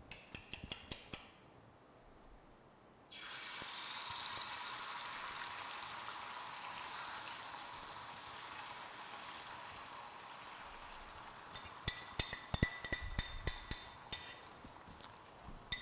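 Beaten egg sizzling as it is poured onto a preheated Saladmaster stainless steel square griddle. The sizzle starts suddenly about three seconds in and slowly dies down. A few light clinks of a fork against the bowl come at the start, and a busier run of fork clinks and scrapes comes near the end as the last of the egg is pushed out.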